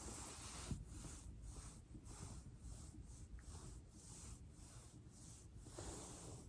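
Faint rubbing of a body and clothing rolling on a foam roller, with a soft rhythmic swish about twice a second and a single small click under a second in.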